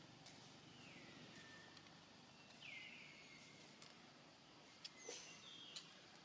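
Quiet outdoor ambience with two faint whistled animal calls, each falling in pitch and then levelling off, about a second in and near three seconds in. A few short high notes and faint clicks follow about five seconds in.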